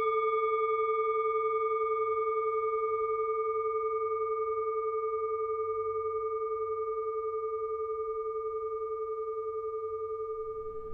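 A singing bowl ringing after a single strike, a long, clear tone with a steady wavering pulse, fading slowly.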